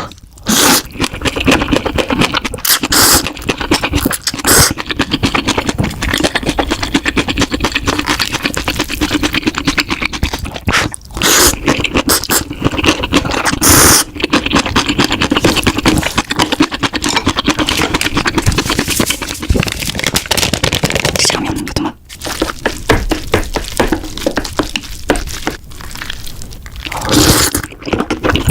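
Close-miked eating sounds: spicy noodles being slurped and chewed, a dense run of small wet clicks broken by several louder slurps.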